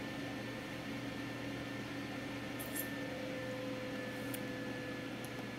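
Faint steady room hum and hiss, with a couple of faint short clicks.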